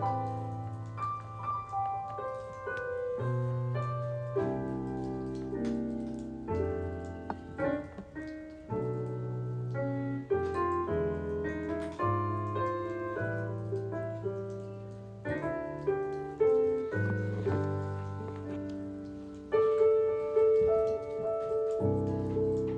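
Background piano music, with sustained chords over low bass notes that change every second or two.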